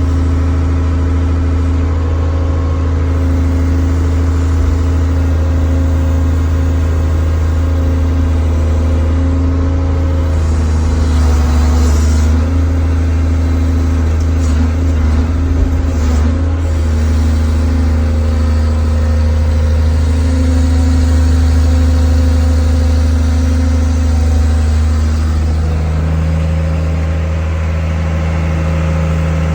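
The log-splitting sawmill's engine running loudly and steadily as the big saw works through a log, its pitch shifting slightly about 25 seconds in.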